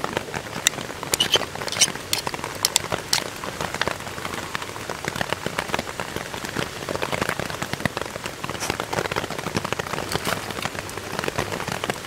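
Rain pattering steadily on a silnylon tarp overhead, with sharp clicks and scrapes from an oyster knife prying into a Pacific oyster's shell, most of the sharper clicks in the first few seconds.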